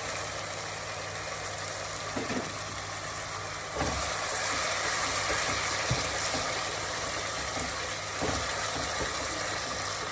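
Chicken and spices frying in oil in a pan: a steady sizzling hiss that gets louder about four seconds in, with a few knocks and scrapes of the stirring spoon over a steady low hum.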